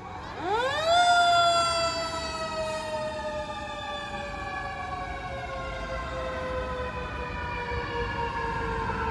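Fire truck siren winding up steeply in about a second, then sliding slowly down in pitch, with low engine rumble beneath.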